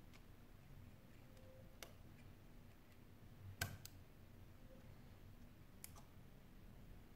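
Faint, sharp clicks of tweezers and a small plastic part being handled against the opened phone's frame during reassembly, about four clicks in all, with two close together a little past halfway, against near silence.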